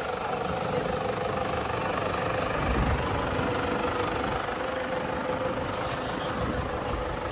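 Motor vehicle engine running steadily, an even hum with a constant pitch.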